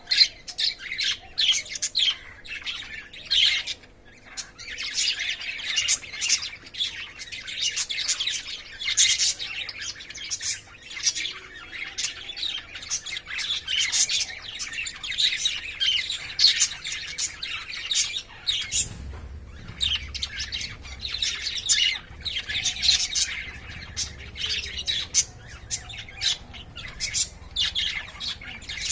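Caged lovebirds chattering continuously: rapid, high chirps and sharp squawks overlapping one another.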